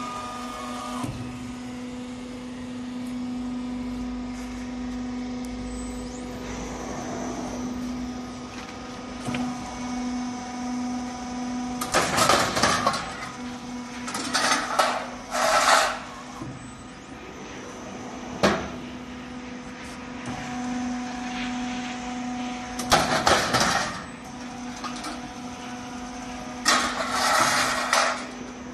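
Double-layer roll forming machine running, its motors giving a steady hum. From about halfway through, several short, loud bursts of noise break in a few seconds apart.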